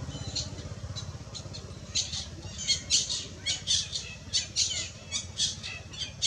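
Baby long-tailed macaque giving short, shrill squeaking cries, about three a second, growing louder about two seconds in: the distress cries of an infant trying to stay with its mother.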